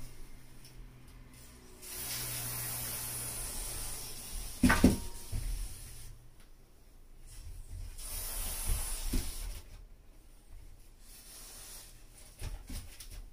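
Aerosol spray can hissing in two long bursts, a few seconds apart, with a sharp knock between them.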